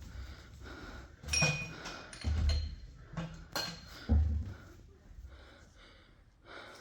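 A handful of heavy thumps mixed with sharp metallic clinks that ring briefly, all within about three seconds.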